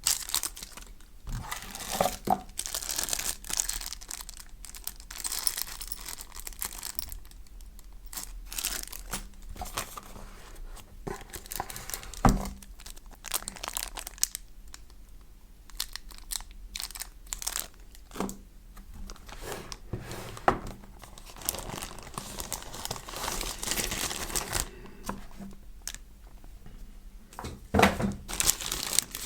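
Keyboard packaging being handled and pulled open: irregular crinkling and tearing in bursts, with a few sharp knocks, the loudest about twelve seconds in.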